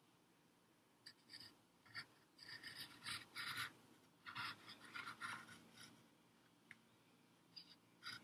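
Wooden pencil drawing on paper: a run of short, faint scratching strokes, bunched in the middle, with a few more near the end.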